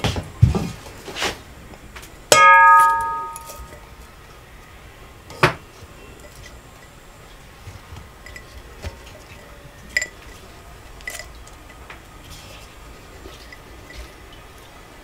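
A large aluminium bowl is set down on a table with one ringing clang about two seconds in. Then come a few light knocks and clinks of glass jars being handled as bean pods are packed into them.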